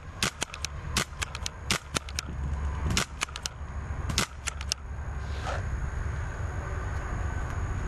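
Paintball marker firing in quick strings of shots, about twenty sharp pops in the first four and a half seconds, then stopping.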